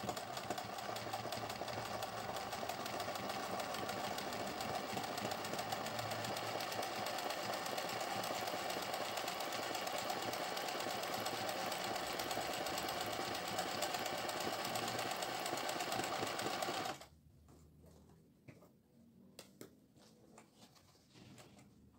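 Singer 20U semi-industrial zigzag sewing machine running steadily, stitching around the edge of felt appliqué petals. It stops suddenly about 17 seconds in, followed by a few faint clicks.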